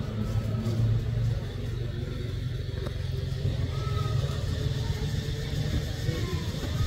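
A steady low engine rumble, like a motor vehicle running.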